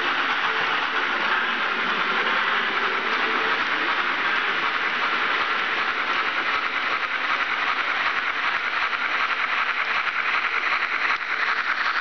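ESU digital sound decoder in a model BR 95 steam locomotive, playing a steady hissing steam chuff that imitates the real engine running.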